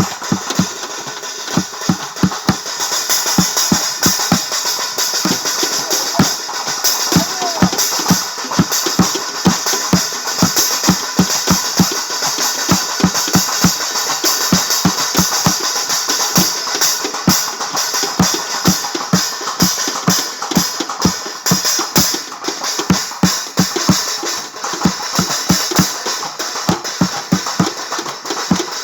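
Festival percussion: drums played in a fast, steady beat of roughly three strokes a second, over continuous high jingling or clashing from cymbals or similar metal percussion.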